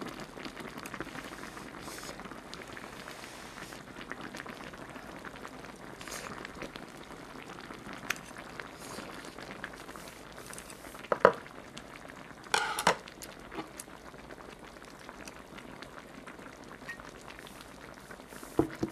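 Spicy braised mackerel and radish stew simmering in a wide pot, bubbling with a steady fine crackle. A few sharp clicks and knocks sound over it, the loudest about eleven seconds in.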